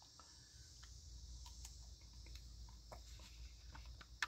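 Faint scattered small clicks and light taps over a steady low hum and hiss, with one sharper click near the end.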